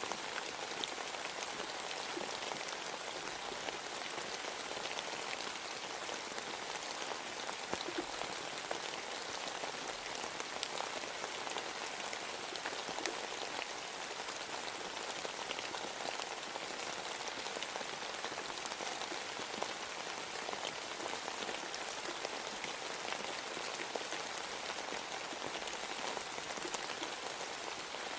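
Steady rain falling: an even, continuous hiss with scattered individual drop ticks, unchanging throughout.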